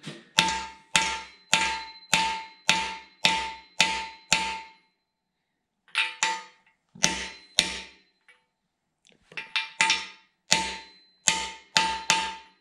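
Hammer blows on a socket driving a frost plug (core plug) into a 454 big-block Chevrolet engine block, each strike with a short metallic ring. First a run of eight even blows about two a second, then after a pause slower, uneven strikes and a few light taps as the plug is tapped in straight.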